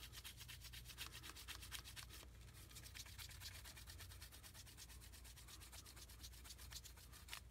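Paper towel rubbing polish off a plated metal car-audio distribution block: faint, quick, repeated wiping strokes.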